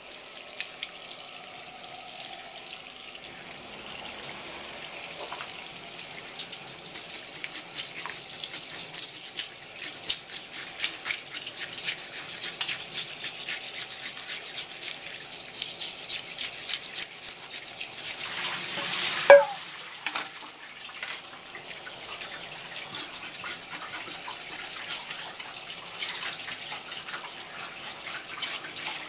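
Tap water running steadily onto a whole chicken grunt (isaki) while a toothed metal fish scaler rasps off its scales in quick scraping strokes. About two-thirds of the way through there is one loud, brief squeak that falls in pitch.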